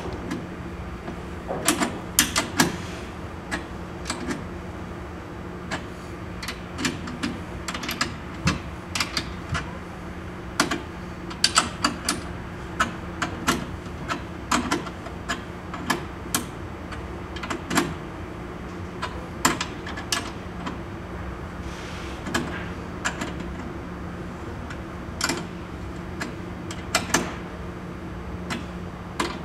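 9/16 in. steel wrench clicking and clinking against hex nuts, in short, irregular strokes, as the nuts on a clamp's bolts are snugged down a little at a time to even pressure.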